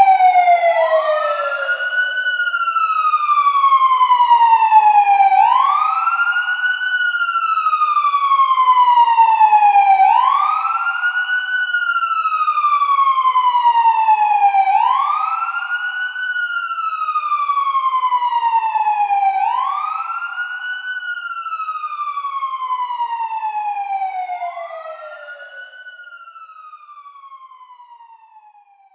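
Police siren wailing: each cycle sweeps quickly up in pitch and then slides slowly back down, repeating about every four to five seconds, then fades away over the last few seconds.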